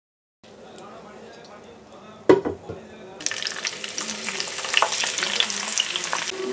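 Hot oil sizzling quietly in a frying pan, with one sharp knock a couple of seconds in. About three seconds in the sizzle jumps loud and crackly with many small pops as a fresh batch of thin raw eggplant slices goes into the oil.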